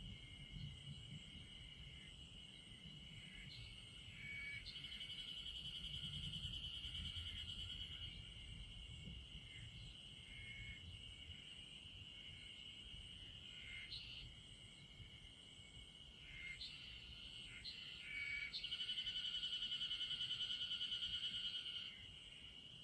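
Chorus of singing insects, crickets or katydids, each holding a steady high trill. One trill swells louder twice, about four seconds in and again near the end, and brief extra calls cut in between. A faint low rumble lies underneath.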